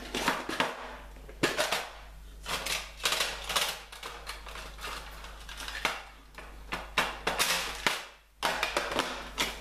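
Crochet hooks clicking and clattering against one another as they are sorted through to pick out a size 3 hook: a run of irregular sharp clicks.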